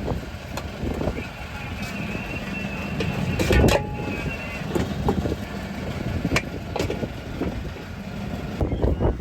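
Fishing boat's engine running steadily, a low rumble, with a few sharp knocks about three and a half, six and a half and seven seconds in.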